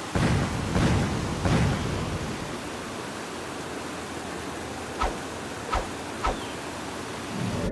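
Steady rushing of a stream's rapids spilling over rocks, with a few low rumbling swells in the first second and a half and three short knocks around five to six seconds in.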